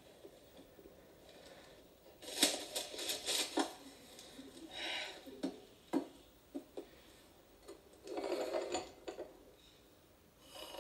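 Newspaper pages rustling and crockery and cutlery clinking at a breakfast table, heard through a television's speaker. A crackly flurry of rustling comes about two seconds in, then a few single sharp clinks, and another stretch of rustling near the end.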